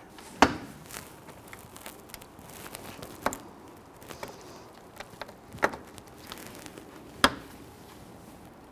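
Hands and a tool working plastic bumper-cover trim and a push-in retainer on a Toyota RAV4's front end: scattered sharp clicks and light taps, with four louder clicks spread through the stretch, the first the loudest.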